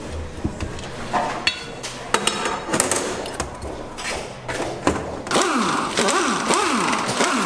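Metal parts clanking and knocking on a steel workbench, then from about five seconds in a pneumatic wrench whirring in repeated rising and falling sweeps as it runs bolts out of a BMW E36 rear differential housing.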